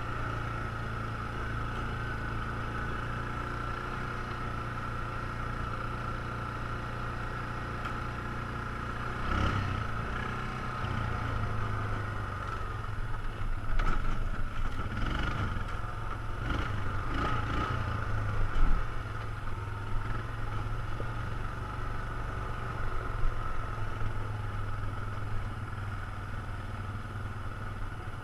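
ATV engine running at a steady pace while riding a dirt trail. A series of knocks and rattles stands out through the middle stretch.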